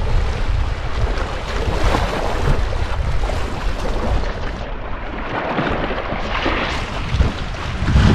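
Wind buffeting the microphone: a steady rush with a heavy low rumble.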